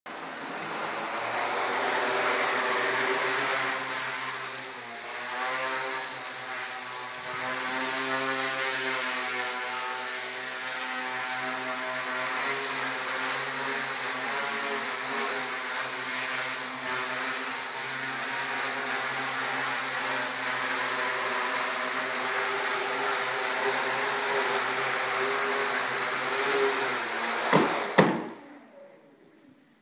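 XAircraft 450 Pro quadcopter's four electric motors and propellers whirring steadily, the pitch wavering as it hovers on its first flight. Near the end there is a loud knock as it sets down, and the motors stop.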